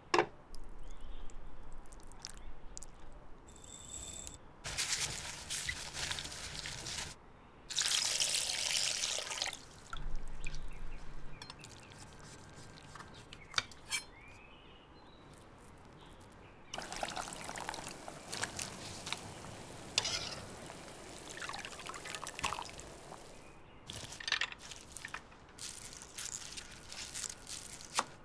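Water pouring and trickling in several separate bursts, with scattered small clicks of kitchen handling. Near the end, a knife chopping scallions on a wooden board in quick strokes.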